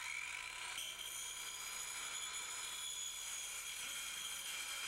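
Skilsaw 13-amp circular saw cutting through a ribbed steel wall panel. Its whine climbs in pitch over the first second as the motor comes up to speed, then holds as a steady high whine while the blade cuts the metal.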